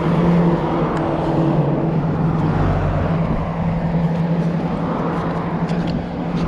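Road traffic: a steady low engine hum over a rumbling haze, swelling briefly about halfway through as a vehicle goes by.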